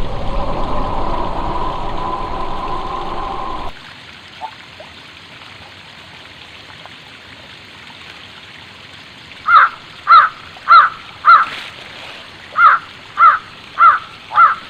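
A steady droning noise that cuts off suddenly near four seconds in, then an animal calling loudly, eight calls in two runs of four, about two calls a second.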